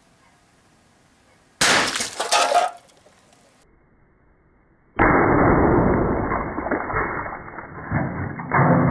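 A homemade QEV (quick exhaust valve) air rifle charged to 600 psi fires a valve-stem-cap projectile at a full drink can: a sudden sharp blast and rush of air lasting about a second. About five seconds in, a second, muffled rushing noise starts abruptly and carries on for several seconds.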